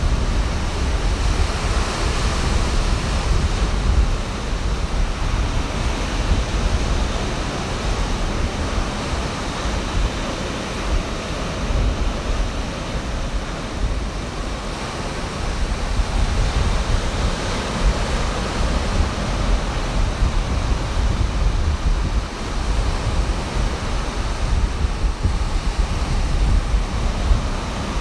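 Ocean surf breaking and washing up the beach in a continuous hiss, with wind buffeting the microphone in a flickering low rumble.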